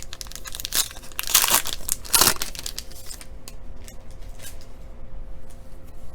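A trading card pack's wrapper being torn open and crinkled, with the loudest tearing in the first half, then quieter rustling as the cards are handled.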